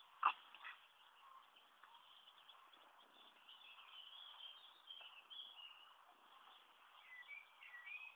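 Faint high chirps and short wavering glides over a low steady hiss, with one sharp click just after the start.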